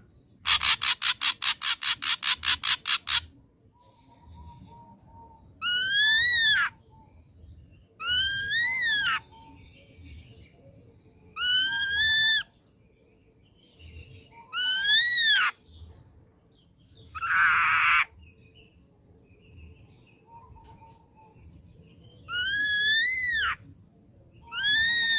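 Ashy drongo singing: a fast rattle of about a dozen notes near the start, then a series of loud whistled notes, each rising and falling, repeated every few seconds and each led by a soft short note. One harsh, rasping note comes about two-thirds through.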